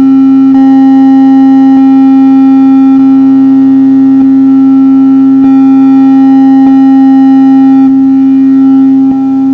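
Electronic synth drone: a strong steady low tone with several held tones stacked above it and a haze of noise, plus scattered faint clicks. The upper tones change about half a second in and again around five and a half seconds, then drop away near eight seconds.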